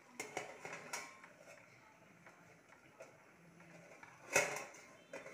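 A metal spatula clicks and scrapes against an aluminium kadai of noodles a few times, then a steel plate is set on the pan as a lid with a clank about four seconds in.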